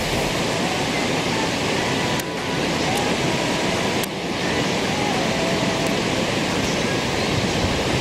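Steady rush of flowing water, an even hiss-like roar that holds throughout, dipping briefly twice.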